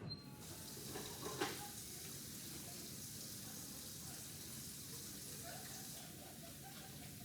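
Water running from a sink tap as hands are washed, a steady hiss, with a couple of short knocks about a second in.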